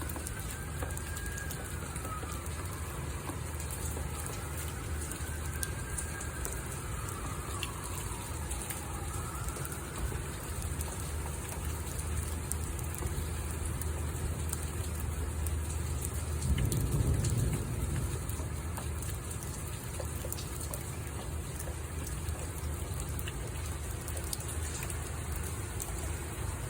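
Steady rain falling. A faint, distant siren wails slowly up and down through the first ten seconds or so, and a brief low rumble comes about two-thirds of the way in.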